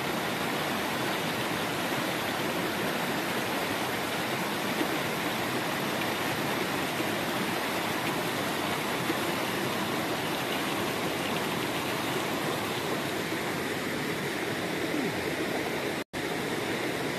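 Steady rush of running water, an even noise without pauses, broken once by a very brief dropout about a second before the end.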